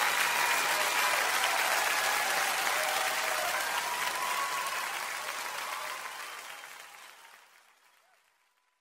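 Audience applauding at the end of a live song recording, fading out steadily over the last few seconds to silence.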